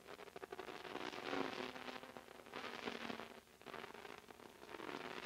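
Pit-lane noise during a racing car's wheel change: irregular swells of hissing and rattling, several times, over a faint steady hum.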